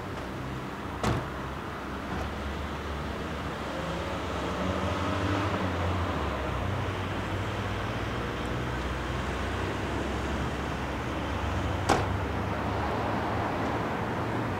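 Road traffic ambience: a vehicle engine's low rumble that swells in the middle and stays up, over a steady background hiss. Two sharp clicks are heard, one about a second in and one near the end.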